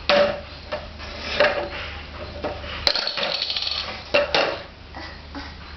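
Parts of a toy shopping trolley, its basket and loose wheels, knocking and clattering as they are handled. There are irregular sharp clicks and knocks, with the sharpest about three seconds in, followed by a brief rattle.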